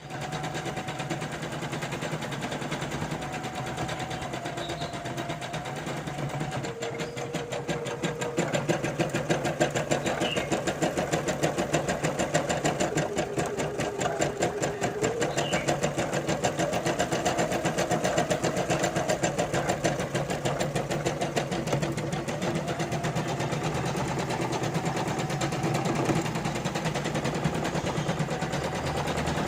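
Singer M200 embroidery machine stitching: the needle runs in a rapid, even rhythm over a motor hum whose pitch steps up and down. It gets louder about eight seconds in.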